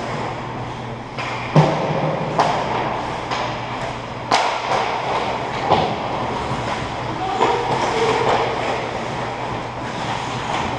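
Ice hockey play in front of the goal: sticks, puck and skates on the ice, with several sharp knocks and thuds over a steady low hum. The loudest knock comes a little past four seconds in.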